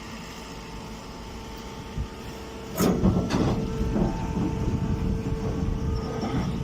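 Pine straw baling machine running with a steady motor hum; about three seconds in, a loud clank and a second one just after start a louder rattling rumble of the machine working, which drops back to the hum near the end.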